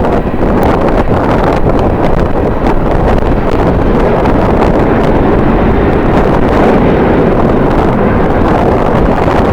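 Strong wind buffeting the microphone: a loud, steady rumbling noise without any clear tone.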